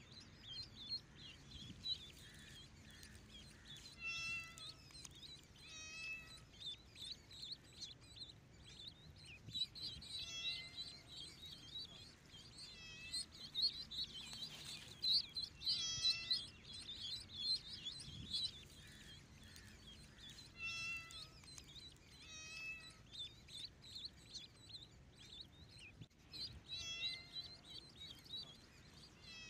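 Kittens meowing in short calls a few seconds apart, over continual high-pitched peeping chirps that are busiest about halfway through.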